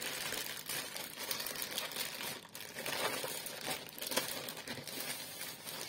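Polyethylene mailer bag and the clear plastic wrapping of the items inside it rustling and crinkling as hands rummage in the bag and pull the contents out, with many small irregular crackles throughout.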